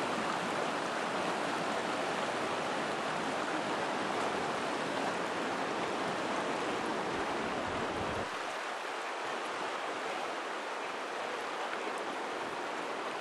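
Broad, choppy river current rushing steadily over a rocky bed: a continuous hiss of moving water. A low rumble under it drops away about eight seconds in.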